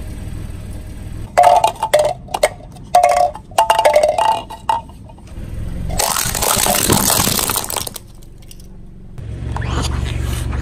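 Glass Christmas baubles clinking and ringing against each other and the concrete as they are handled and set down. About six seconds in comes a dense crackling crunch as a car tyre crushes them, and near the end a car's low rumble.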